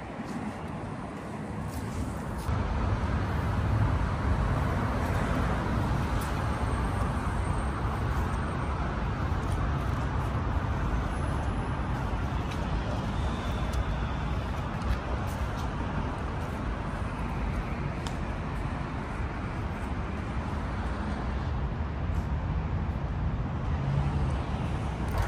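Steady vehicle rumble, like road traffic, growing louder about two and a half seconds in and then holding steady.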